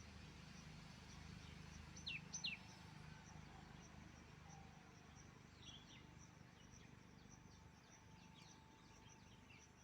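Birds chirping faintly: two quick high chirps that drop in pitch about two seconds in, then scattered softer chirps, over a steady low background rumble.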